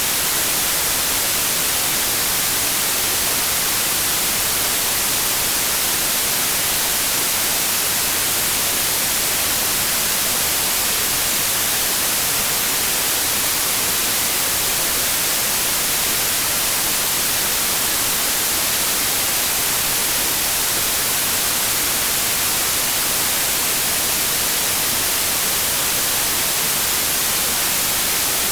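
Synthetic white noise: a steady, unchanging hiss, brightest in the treble.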